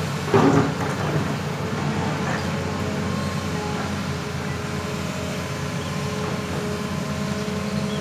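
Hitachi Zaxis 200 crawler excavator's diesel engine and hydraulics running steadily under load as the boom and bucket dig and lift soil. A brief loud clatter comes about half a second in.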